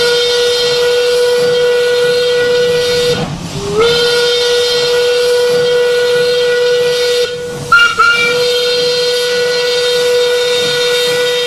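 Steam locomotive whistle blowing three long blasts, each sliding up to a steady pitch as it opens, with a brief pip just before the third and a hiss of steam under the tone.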